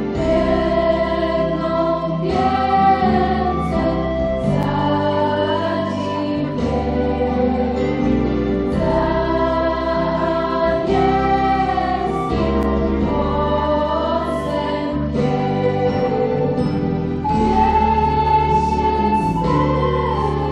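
Music: a choir singing a slow piece in long held notes over sustained accompanying chords.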